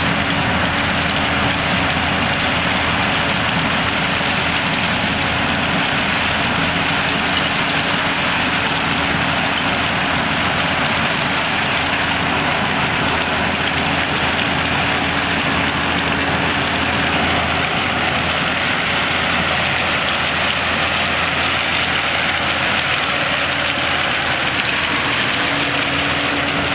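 Bulldozer's diesel engine running steadily, with a constant noisy rush over the low engine drone.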